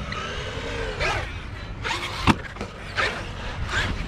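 Electric motor of a Traxxas RC truck whining as it is throttled in short bursts, its pitch falling off, then sweeping up again several times, with one sharp knock about two seconds in.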